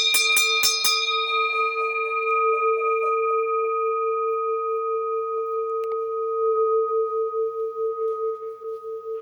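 A large bell with its note at A4, struck rapidly about four times a second. The strikes stop about a second in, and the note then rings on, fading slowly and wavering with a slow beat near the end.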